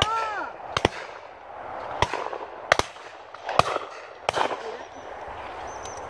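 Shotguns firing at game birds: about six sharp reports over some four seconds, several in quick pairs, some louder than others.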